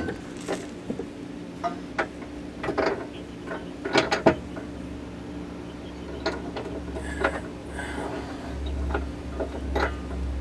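Irregular metallic clicks and clinks of a receiver hitch's mounting bolt and hardware being fitted into the last hole in the car's frame and threaded in by hand, over a steady low hum.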